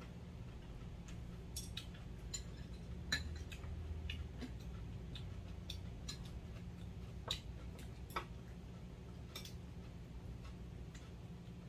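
Metal chopsticks and spoons clicking and tapping irregularly against stainless steel bowls and plates during a meal, over a faint low steady hum.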